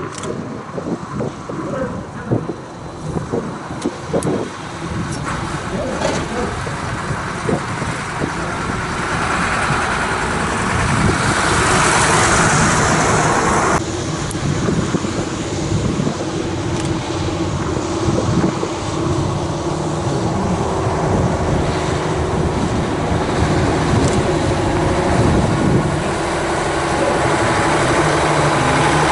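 Engine of an old DAF cab-over box truck running as it approaches, growing steadily louder. A rushing hiss builds about ten seconds in and cuts off suddenly near the middle.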